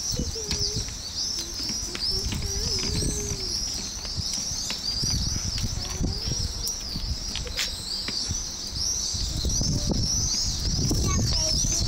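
A dense chorus of small birds chirping without a break, many short high chirps a second overlapping one another. Under it runs a low rumble that grows louder near the end.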